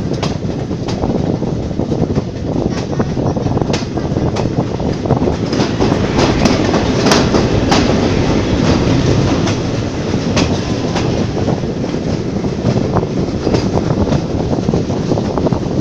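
Wheels of vintage passenger carriages rolling over the rail joints at speed: a steady rumble with irregular clickety-clack, louder for a few seconds around the middle as the train passes under a bridge.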